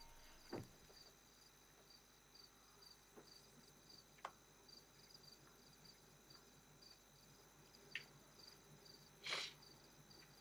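Faint night-time crickets chirping, a high pulse repeating about twice a second over a steady high insect drone. A soft knock comes just after the start, with a couple of small clicks and a short rustling burst near the end.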